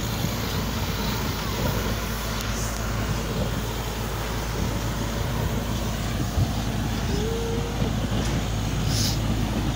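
Borewell drilling rig's engine and air compressor running steadily, with a constant rushing hiss.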